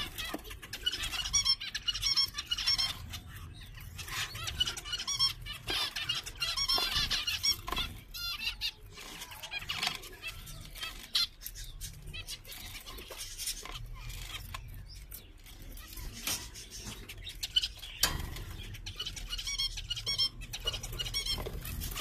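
A group of zebra finches calling and chirping, many short high calls overlapping in busy bursts, densest in the first few seconds and again near the end, with scattered sharp clicks among them.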